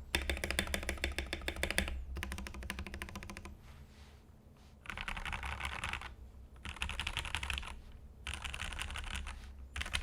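Ducky One2 SF mechanical keyboard with lubed Gateron Milky Yellow linear switches being typed on fast: about three and a half seconds of continuous typing, a pause of about a second, then four bursts of rapid keystrokes of about a second each.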